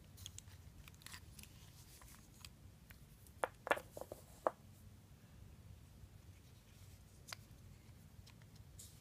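Light clicks and taps of a screwdriver and small parts against the plastic body of a Shimano spinning reel being taken apart, a quick cluster of sharp clicks about three and a half to four and a half seconds in and a single click near seven seconds.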